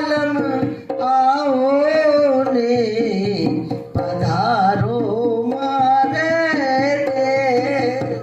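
A woman singing a folk song in long phrases with a wavering, ornamented pitch, accompanied by a dholak drum.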